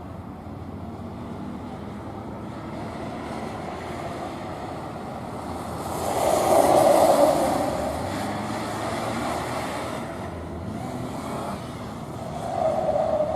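A car's engine working hard through a gymkhana course, its pitch rising and falling with throttle and gear changes; it is loudest about six to seven seconds in, and swells again near the end.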